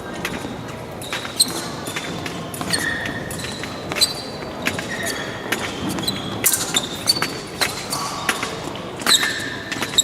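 Fencers' footwork during an épée bout: many short shoe squeaks and stamping knocks on the piste, coming in an irregular, quick pattern.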